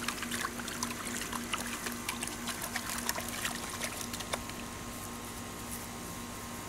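A puppy splashing in a small plastic bowl of water: quick, irregular splashes and drips that thin out about two-thirds of the way through.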